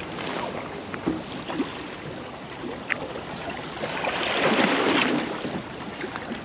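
Wind on the microphone and water washing against the hull of a small RIB at sea, with a few small knocks and a louder rush of noise about four seconds in.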